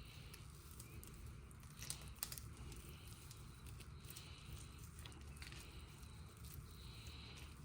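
Near silence: faint room hum with a few soft clicks and small handling noises, a little louder about two seconds in.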